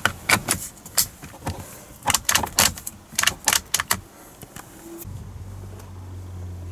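Plastic indicator stalk being pushed and clipped into the steering-column combination switch: a quick, irregular run of sharp plastic clicks and rattles for about four seconds. A steady low hum starts about five seconds in.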